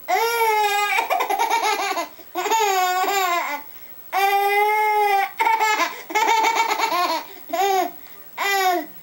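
Baby laughing in a string of high-pitched squealing bursts, with one longer held squeal about halfway through.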